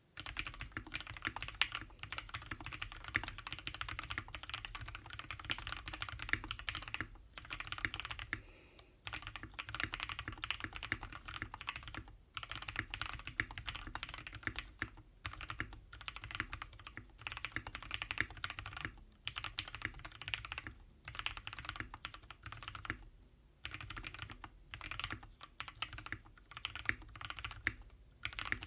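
Continuous fast typing on a custom mechanical keyboard with lubed and filmed milky-top Gateron Yellow linear switches in a polycarbonate Klippe R4 case with a polycarbonate plate and PBT keycaps, with a few brief pauses between bursts.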